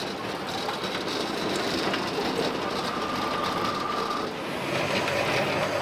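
Belt-driven electric machine beating fish ball paste, running with a steady mechanical whirr; a thin whine comes in for about two seconds in the middle.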